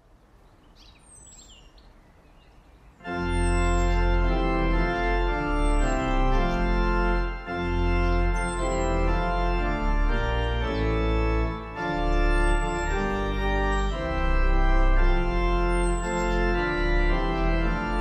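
Faint outdoor ambience with a bird's high chirps, then about three seconds in an organ starts playing sustained chords with a deep bass line. Short high falling bird chirps carry on every couple of seconds over the organ.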